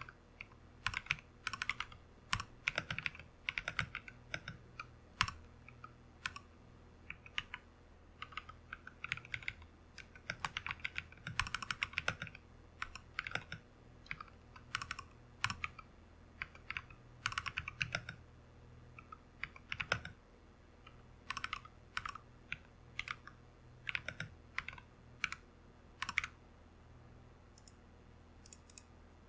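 Typing on an RK100 mechanical keyboard with lubed and filmed Glorious Panda tactile switches, clipped and lubed stabilizers and foam-modded case: runs of quick key strokes in bursts with short pauses between words, with a few single louder strokes.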